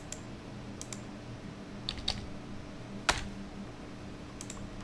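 Sparse clicks from a computer mouse and keyboard, a few at a time with one louder click about three seconds in, over a faint steady low hum.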